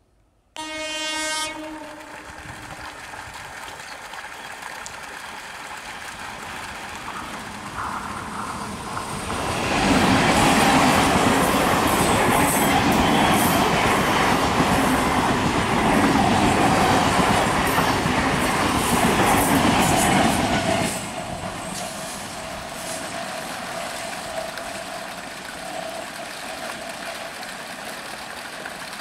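Electric multiple-unit (EMU) suburban train: a short horn blast near the start, then the train rumbles past close by from about ten seconds in, with clickety-clack of wheels over rail joints, and drops away abruptly about twenty-one seconds in. A second EMU follows with a quieter steady running sound as it approaches.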